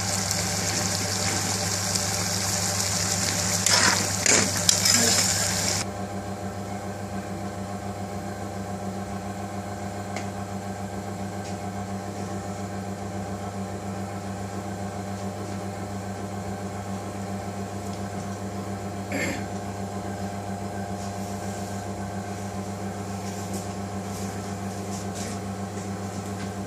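Prawn curry sizzling in a pan over a gas burner, with a few clatters about four to five seconds in. About six seconds in the sizzle stops suddenly, leaving a steady low mechanical hum.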